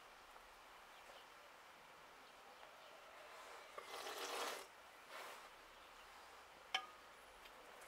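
Near silence: faint outdoor background hiss, broken by a brief rustling noise about four seconds in and a single sharp click near seven seconds.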